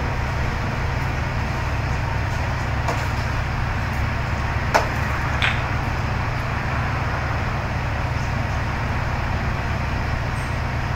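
A large engine running steadily with a low drone. A single sharp knock comes a little before the middle, with a softer click just after.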